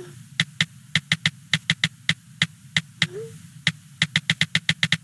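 Electronic music: a rapid clicking drum-machine beat over a steady low bass, with a short sliding tone that recurs every few seconds.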